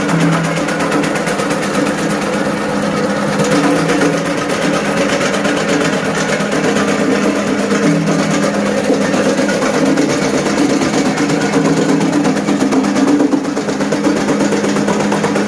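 A small motor-driven machine running steadily with a fast, even rattle and a steady hum.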